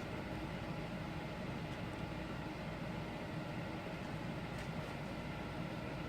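Steady low hum and hiss of a running machine or fan, even throughout with no distinct events.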